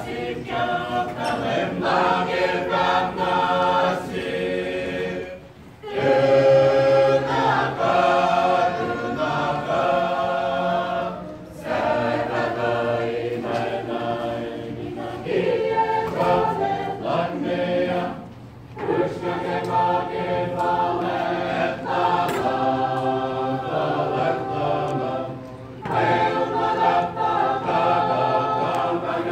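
A mixed choir of men and women singing together unaccompanied, in long phrases with a short break about every six to seven seconds.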